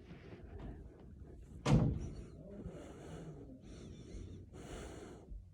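A single thump about two seconds in, then a girl breathing hard in a run of hissing breaths while short of air in a cramped hiding place.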